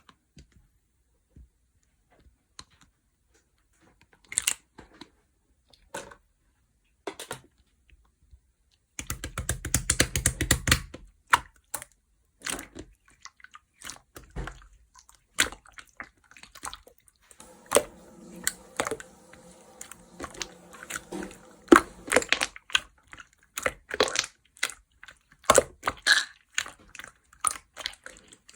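Giant, milky-white, chewy slime being handled, giving sticky clicks and pops, sparse at first. About a third of the way in there is a burst of dense crackling, and the clicks come thick and fast after it.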